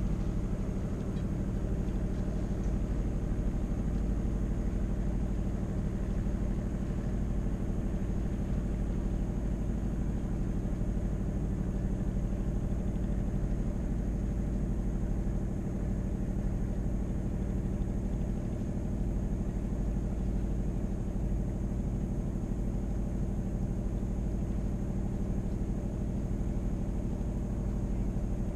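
Sailboat's auxiliary engine running steadily at low revs while the boat motors through the harbor, a constant hum over a low rumble.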